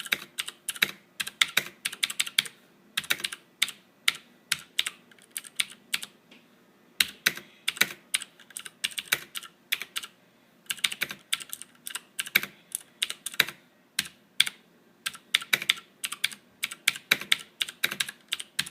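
Typing on a Cooler Master Quickfire XT full-size mechanical keyboard with clicky Cherry MX Green switches: runs of sharp key clicks broken by short pauses.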